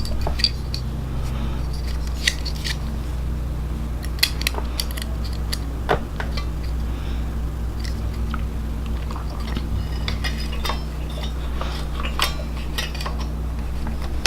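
Plastic keys of a Korg keyboard clicking and snapping as they are handled and fitted back onto the keybed, a run of irregular sharp clicks over a steady low hum.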